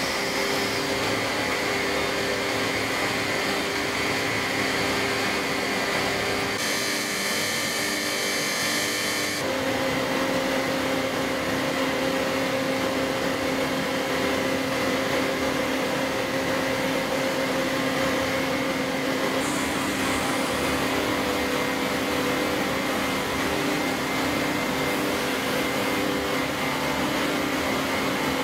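CNC grinding machine grinding the steps of a step drill: a steady machine hum with several held tones over a hiss, the hiss brighter for a few seconds near the quarter mark.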